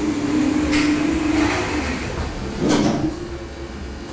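Elevator running with a steady hum and low rumble. About three seconds in comes a louder, short clatter, after which it turns quieter.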